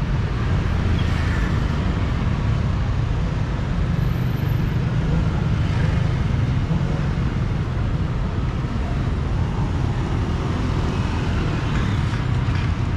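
Steady low rumble of motor vehicles, with an even haze of street noise over it.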